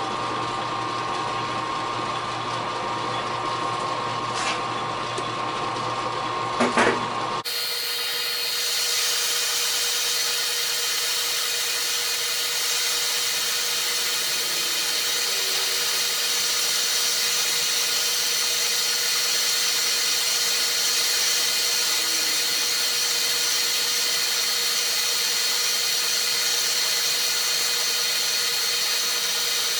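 Metal lathe running while a boring bar takes a 40-thousandths cut inside a steel bore: a steady machine whine with a couple of sharp ticks. About seven seconds in, the sound changes abruptly to a different, thinner steady whine.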